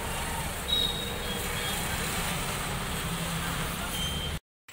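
Small hatchback's engine running as the car pulls slowly away, over a steady street-noise rumble, with a brief high-pitched beep about a second in.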